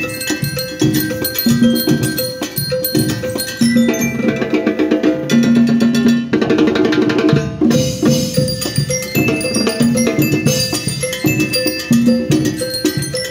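A school rhythm band plays a tune on ringing mallet percussion over a steady drum beat, with a fast roll from about halfway through.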